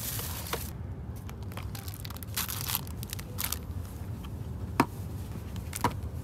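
Plastic and paper food packaging rustling and crinkling as boxed train lunches and wrapped snacks are handled on a seat-back tray table, over the steady low hum of a train carriage. Near the end come two sharp knocks as a can and a bottle are set down on the tray.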